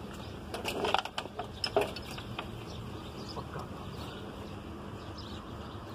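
A few light, sharp clicks and taps in the first two seconds, then steady low background noise.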